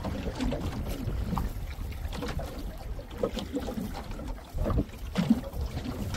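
Wind buffeting the microphone over small waves lapping against the hull of an open fishing boat, with a louder thump about five seconds in.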